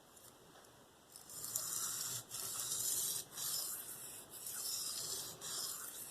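K390 steel knife blade stroked freehand across a Venev diamond sharpening stone: a hissy scraping in about five strokes, roughly one a second, starting about a second in. The strokes are evening out a lopsided factory bevel and quickly raise a burr.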